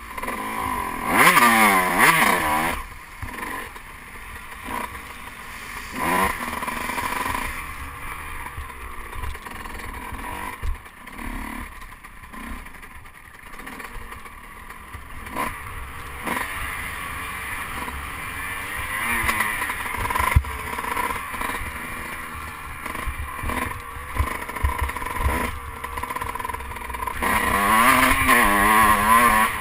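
Dirt bike engine under hard throttle, its pitch rising and falling about a second in and again near the end, settling to a quieter low-throttle run in between. Scattered knocks and scrapes from the bike over the gravel, heard from a helmet-mounted camera.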